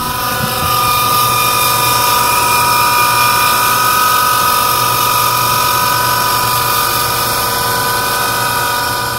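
Flint & Walling SBJ-series centrifugal irrigation pump motor running on worn 6203 ball bearings: a loud, steady high-pitched whine of several held tones over a low hum and hiss. It is the sound of failing motor bearings that need replacing before they seize.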